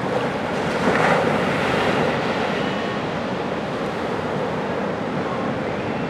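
Pacific Ocean surf on a sandy beach: a steady wash of waves that swells as a wave breaks about a second in.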